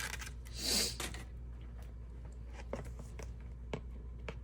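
Brief rustle of small-parts packaging about half a second in, then a few faint light clicks of small parts being handled on a workbench, over a low steady hum.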